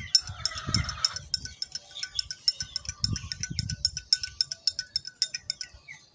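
Metal spoon stirring honey into a glass of water, clinking against the inside of the glass in a quick, even rhythm of about five or six clinks a second.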